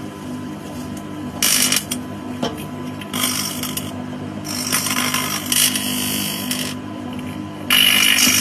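Microwave oven running with a steady hum. Over it come bursts of harsh crackling, four times, the longest lasting about two seconds: earbuds arcing and sparking inside the oven.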